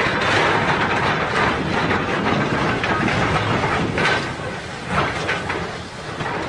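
Steam tank locomotive and its coaches passing close by: a loud, steady rush of running noise with heavier beats standing out every second or so.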